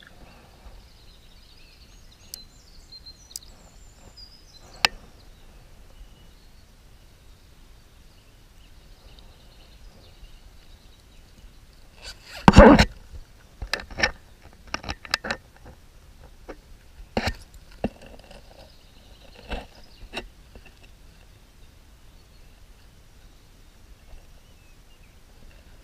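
Handling of a zippered soft-bait lure wallet: a loud rustle about halfway through as it is opened, then scattered clicks and taps as the lures are handled, over a faint steady outdoor background.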